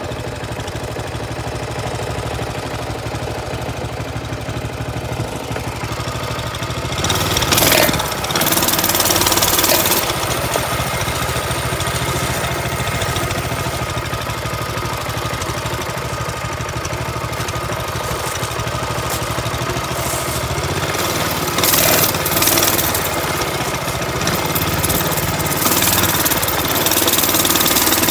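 Mini bike's small engine running steadily. Louder stretches of rushing noise come from about 7 to 10 seconds in and again around 22 seconds.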